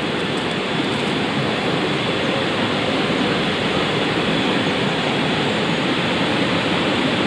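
Shallow, clear stream running over rocks: a steady, even sound of flowing water.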